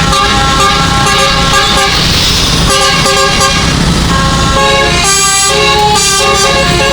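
A bus's 12-note Basuri telolet musical air horn playing a quick tune of short stepped notes, with brief breaks a little under halfway and again about three-quarters through, over a low rumble.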